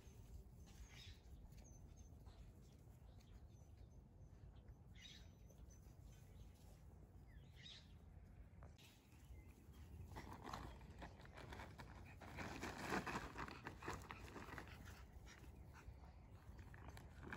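Near silence with a faint low rumble for the first half, then, from about ten seconds in, louder crinkling and rustling of a plastic tarp as a puppy scrambles over it.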